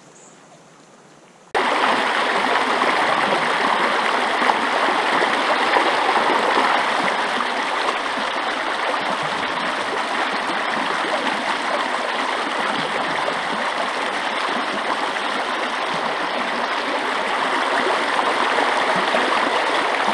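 Shallow rocky creek rushing and splashing over stones, heard close to the water; the steady rush begins abruptly about a second and a half in.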